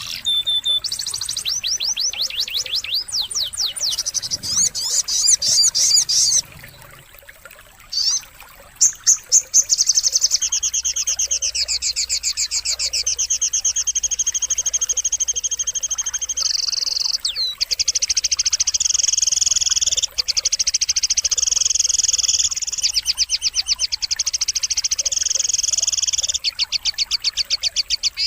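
Sogon (crimson sunbird) song: long, fast, high-pitched trills strung together in buzzy phrases, with a short break about seven seconds in.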